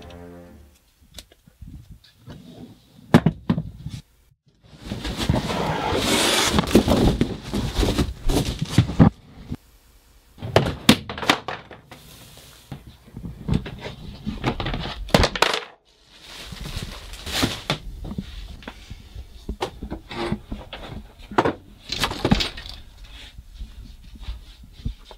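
Things being handled and knocked about: irregular knocks, thuds and clatters with stretches of rustling, the longest rustle about five seconds in.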